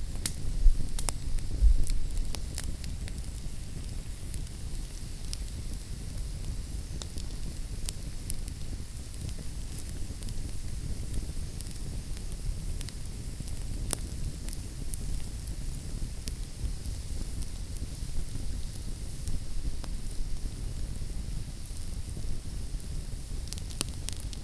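Wood fire in a fireplace crackling: irregular sharp pops and snaps over a steady low rumble and hiss, with a couple of louder low thuds about a second or two in.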